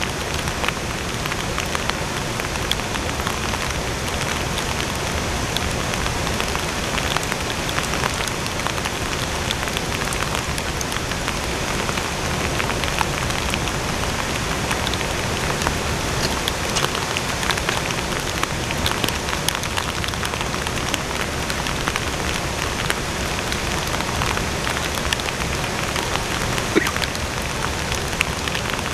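Heavy rain falling steadily: a dense, even hiss scattered with many small ticks of drops striking close by.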